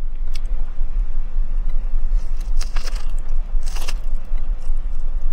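Crisp lettuce wrap being bitten and chewed: a few sharp crunches, the strongest between about two and four seconds in. A steady low rumble runs underneath.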